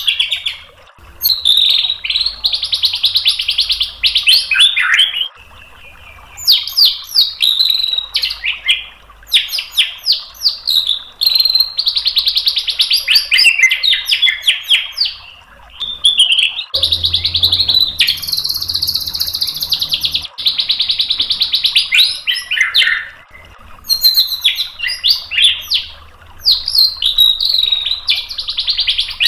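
White-rumped shama (murai batu) singing a long, varied song: loud phrases of rapid trills and quick falling whistles, broken by short pauses.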